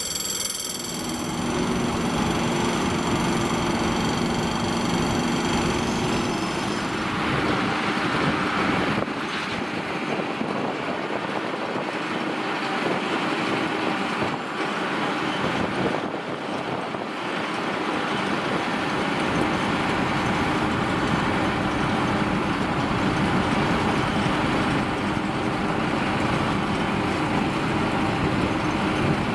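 Diesel engine of a UNAC 300RR² road-rail brush cutter running steadily as the machine manoeuvres. A high ringing tone is heard over it for the first few seconds.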